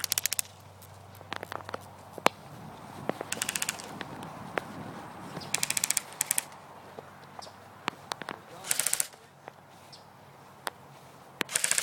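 Airsoft guns firing short full-auto bursts in a game, five bursts of about half a second each, with scattered single sharp snaps between them.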